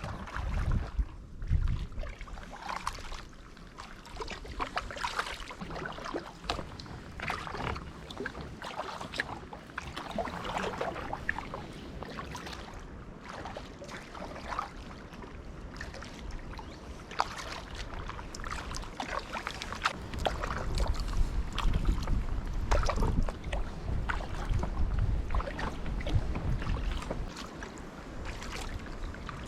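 Kayak paddle working the water: irregular splashing and dripping from the blades, with wind rumbling on the microphone more strongly in the second half.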